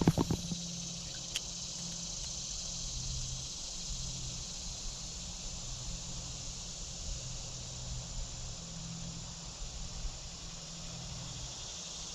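Steady high-pitched chorus of summer insects, such as crickets, with a brief cluster of sharp knocks at the very start.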